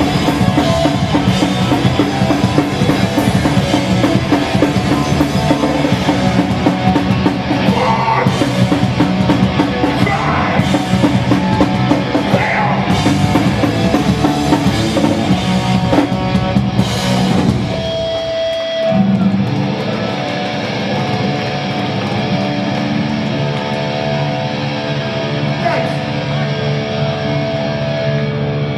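Hardcore punk band playing live, with distorted electric guitars, bass and drums. About 18 seconds in, the drums stop and the guitars and bass ring on with held notes.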